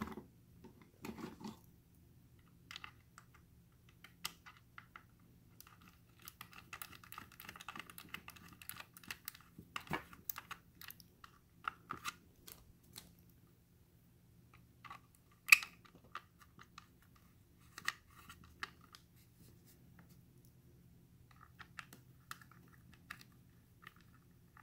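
Small hand-tool clicks and scrapes as a screw is worked into a plastic case with a small screwdriver. There is a run of fast rasping ticks from about six to ten seconds in, and one sharp click a little past halfway, the loudest sound.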